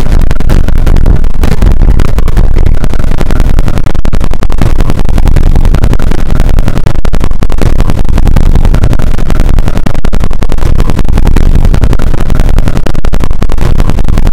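Bass-boosted, heavily distorted remix audio clipping at full loudness: a dense, constant din with an overwhelming low end.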